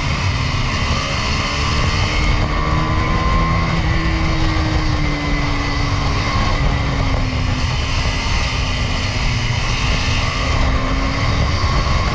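Single-cylinder KTM motorcycle engine running at a steady cruise, its pitch drifting gently up and down, under a heavy rush of riding wind on the microphone.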